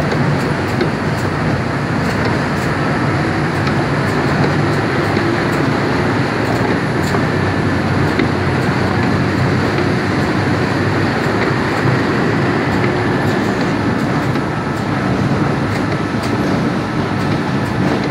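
Steady, loud machinery din of a ceramic plant's clay extrusion line, with a low hum and scattered light clicks.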